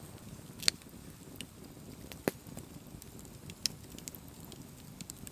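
Wood campfire crackling: three sharp pops about a second and a half apart, with smaller clicks over the low, steady sound of the flames.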